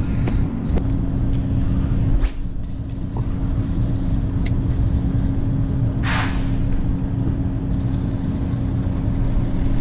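Steady low rumble of road traffic with a constant hum. There are a few faint clicks in the first seconds and a short whoosh about six seconds in.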